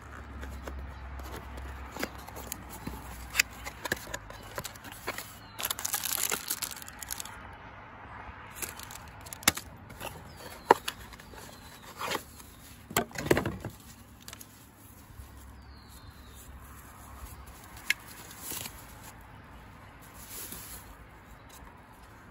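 Hands opening a small cardboard box and taking out a paper-wrapped security camera. Scattered cardboard taps, clicks and scrapes, with a few short bursts of rustling paper and packaging.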